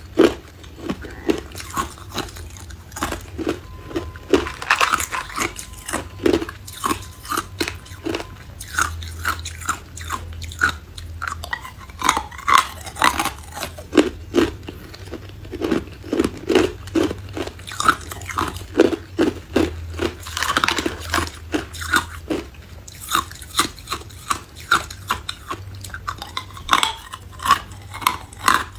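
Close-up biting and chewing of hard ice: a steady run of sharp, crisp crunches, several a second, as the ice is bitten and crushed between the teeth.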